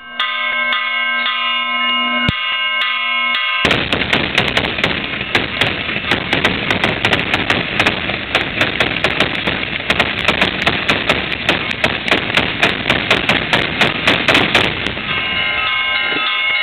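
Bells ringing with one bang about two seconds in, then a long rapid string of firecrackers crackling and popping for about eleven seconds, thinning out near the end as the bells ring on.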